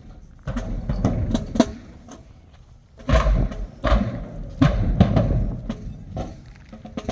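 Marching band percussion playing sparse, irregular drum hits, with two heavy bass drum booms about three and four seconds in.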